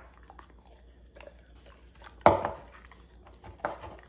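German Shepherd biting and chewing a hard homemade dog treat: two loud crunches about a second and a half apart, with faint small chewing clicks between.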